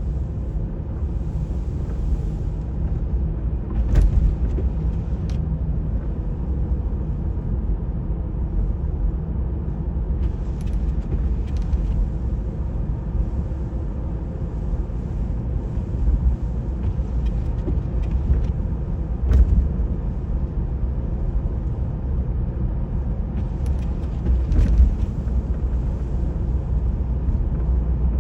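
Car road noise: a steady low rumble, broken by a few sharp clicks and knocks.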